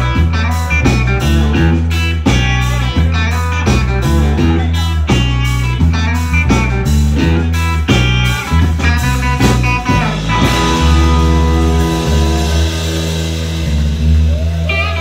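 Live blues band of electric guitars, bass and drum kit playing over a steady drumbeat. About ten seconds in the beat stops and the band holds a long ringing chord with a cymbal wash, then guitar notes start up again near the end.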